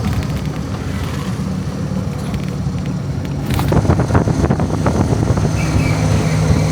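Motorbike-fronted tuk-tuk's engine running steadily while riding, a low hum with road and wind noise, and a spell of rattling clicks about three to five seconds in.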